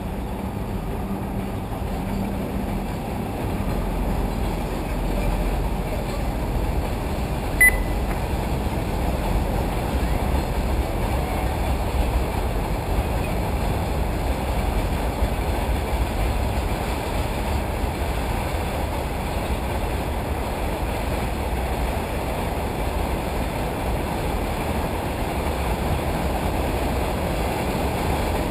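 Steady low rumble of wind on the microphone under a general noise haze, with a single short high beep about eight seconds in.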